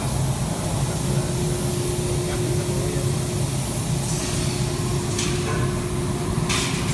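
Spacer bending machine running with a steady hum and a constant tone, broken by a few short hisses in the second half.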